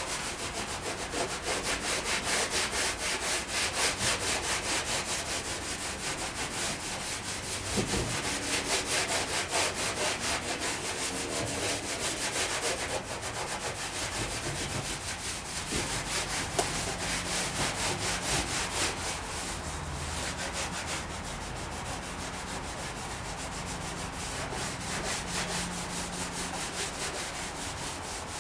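Sandpaper rubbed by hand in rapid back-and-forth strokes over the painted steel tailgate of a 1959 VW bus, wearing through the top paint to uncover the old lettering.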